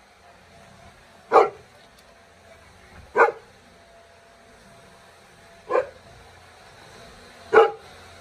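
Cane Corso barking four times, single deep barks spaced roughly two seconds apart.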